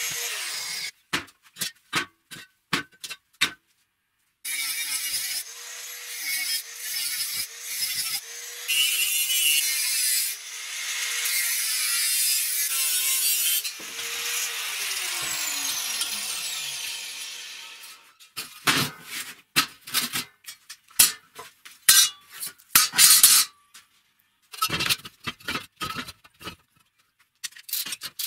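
Hand-held angle grinder working along a strip clamped in a bench vise, its motor pitch wavering and dipping under load over a harsh grinding hiss. About fourteen seconds in it is switched off and winds down to a stop. Before and after there are separate clanks and knocks of metal parts and a steel ruler being handled on the bench.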